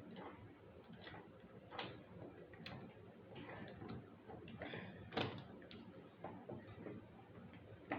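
Faint, irregular clicks and taps of a plastic dinosaur action figure being handled as its jointed limbs and jaw are moved. The loudest click comes about five seconds in.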